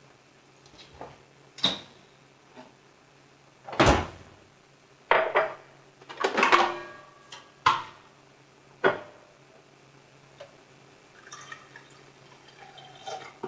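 Kitchenware being handled: a series of sharp knocks and clatters as dishes, a mug and a coffee-maker carafe are picked up and set down on the counter. Near the end comes a quieter stretch as coffee is poured from the carafe into a mug.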